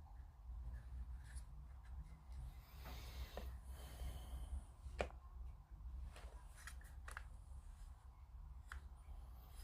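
Small clicks and rustling of plastic model-kit parts and tools being handled, with one sharper click about five seconds in, over a steady low hum.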